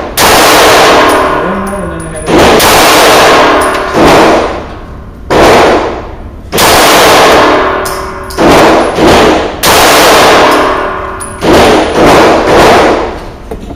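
About ten shots from a Smith & Wesson Sigma SW9VE 9mm pistol, fired a second or two apart, with a few quicker pairs near the end. Each shot is loud enough to overload the microphone, and each is followed by a long echo off the concrete walls of the indoor range.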